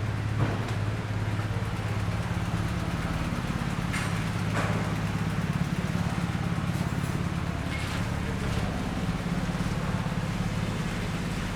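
A motor vehicle's engine running steadily, a constant low hum with a fast flutter, over a hiss of street noise, with a few faint clicks.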